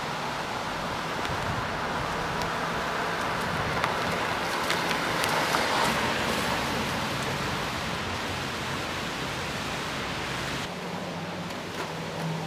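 A car driving up a driveway and passing close: engine and tyre noise swell to a peak about five to six seconds in, then ease as it pulls up and stops.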